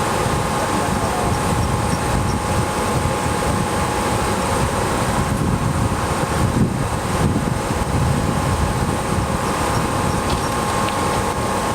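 Ex-Seibu 301 series electric train standing with its onboard equipment running: a steady hum with a faint constant whine over a low rumble.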